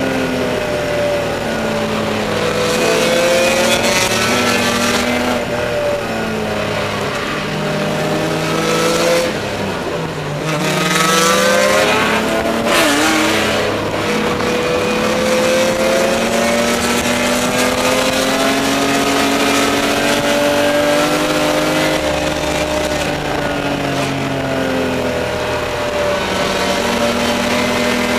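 Spec E30 BMW race car's 2.5-litre straight-six heard from inside the cockpit at racing speed, its note rising and falling with throttle and gear changes. The pitch drops low about ten seconds in, then climbs again.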